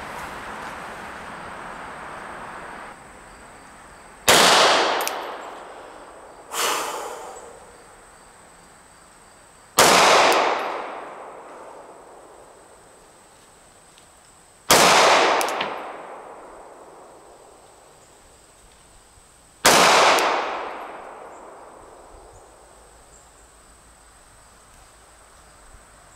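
Gen 5 Glock 19 9mm pistol firing slow, deliberate single shots: four loud shots about five seconds apart, each with a long fading echo, and a quieter bang shortly after the first.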